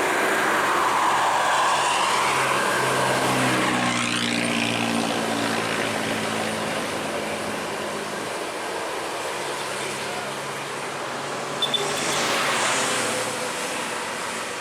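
A bus engine runs steadily amid terminal traffic noise. Its low hum steps up slightly a few seconds in and fades away after about eight seconds, with a couple of short clicks near the end.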